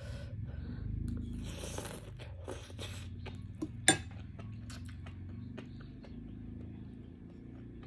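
Slurping a forkful of enoki mushrooms, then wet chewing and mouth sounds, with a sharp click about four seconds in, over a low steady hum.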